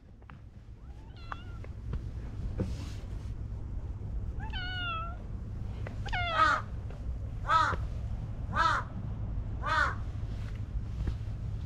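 A cat meowing again and again: a quieter meow about a second in, another near the middle, then four louder meows about a second apart, each falling in pitch. A steady low rumble runs underneath.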